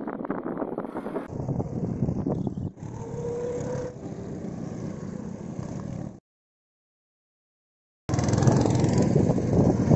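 Go-kart engines running as karts drive round the track. The sound drops out completely for about two seconds a little past halfway, then comes back louder.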